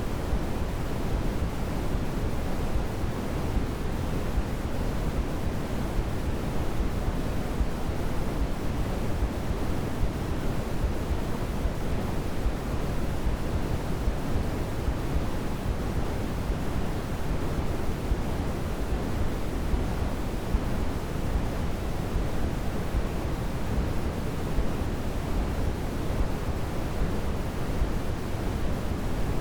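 Steady, unchanging sleep-aid noise played for a baby: an even hiss that is heavier and deeper in the low end than in the highs, like pink noise.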